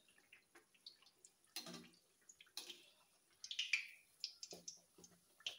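A pua deep-frying in hot oil in a kadhai: faint sizzling and crackling, with the skimmer stirring the oil. The sizzle swells briefly a little past halfway as the fritter is turned over.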